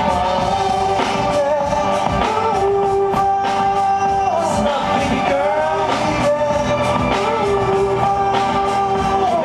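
Live rock band playing a song, with guitar, a steady drum beat and long held sung notes that bend from pitch to pitch.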